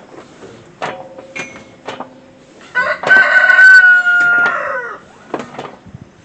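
Rooster crowing once, a loud cock-a-doodle-doo of about two seconds that drops in pitch at the end, with a few light clicks before it.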